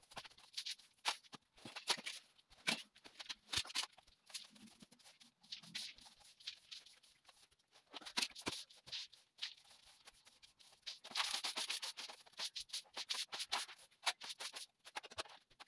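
Irregular rustling with scattered light clicks and knocks from someone working at a wooden baby cot.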